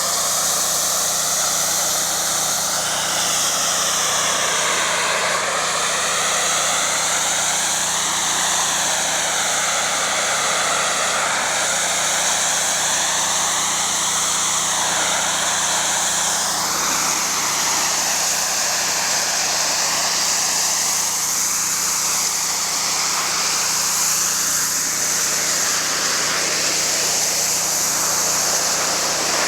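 Pressure washer spray blasting a concrete wall, a loud steady hiss whose tone wavers up and down as the wand sweeps back and forth, over the low steady hum of the washer's engine.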